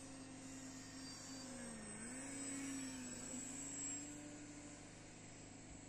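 Electric RC model warplane in flight, its motor and propeller giving a faint steady drone whose pitch dips briefly about two seconds in and then comes back up.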